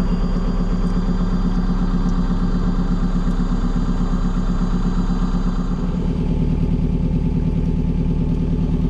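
A hire cruiser's inboard diesel engine running steadily as the boat cruises, a continuous hum with a slight change in note about six seconds in.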